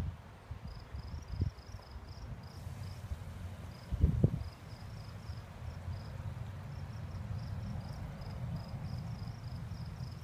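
Insects chirping in a steady run of short, high pulses, a few each second. Low thumps about a second and a half and four seconds in, and a low steady rumble through the second half.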